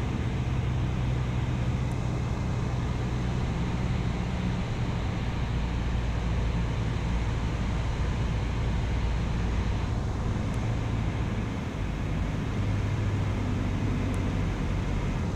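Single-engine training airplane heard from inside the cockpit: a steady engine drone under airflow noise, with the throttle pulled back for a power-off stall. The engine note changes about twelve seconds in.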